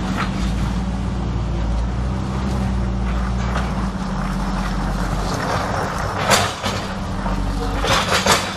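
A steady low mechanical hum, with a few short, sharp noises about six seconds in and again in a quick cluster near the end.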